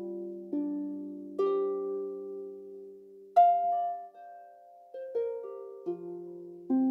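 Celtic harp played slowly: single plucked notes and small clusters, each ringing on and fading away before the next.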